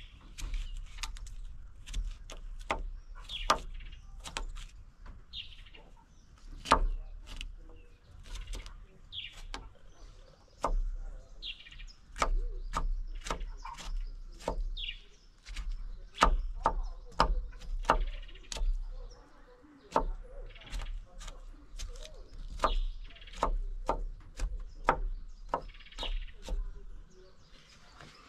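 Knife chopping cucumber on a wooden plank: a run of sharp, irregular knocks as the blade strikes the board, about one or two a second.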